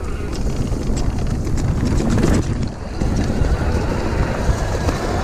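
Wind buffeting the microphone during a fast e-bike ride down a woodland dirt trail, with a deep rumble of knobbly tyres over leaf litter and roots and frequent small knocks and rattles from the bike over bumps.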